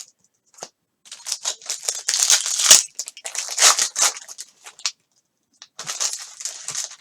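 Foil wrapper of a trading-card pack crinkling and tearing as it is handled and ripped open, in two runs of rustling bursts with a short gap before the second.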